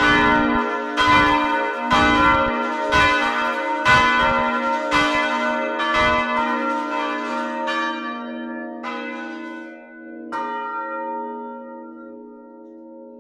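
The full set of swinging church bells in a tower ringing together, clappers striking about once a second. The strikes thin out to a few last ones, the final one about ten seconds in, as the bells come to rest, leaving their hum to fade.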